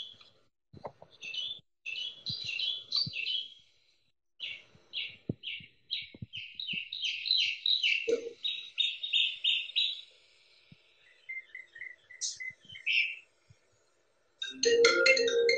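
Recorded mockingbird song played from a small wall-mounted speaker, with rapid repeated chirping phrases. Near the end it switches suddenly to a louder iPhone ringtone as the installation's proximity sensor is set off.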